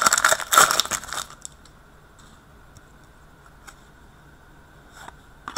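Hockey trading cards rustling and scraping against each other as they are handled, for about the first second. Then low room tone with a faint steady hum and a few soft clicks, one a little louder near the end.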